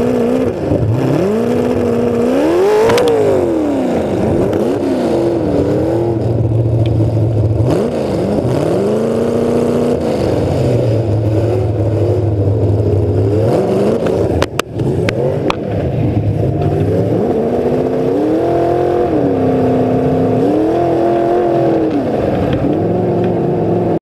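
A demolition derby car's engine blaring through open exhaust stacks on the hood, revving up and falling back over and over as the car drives. A couple of sharp knocks come about halfway through.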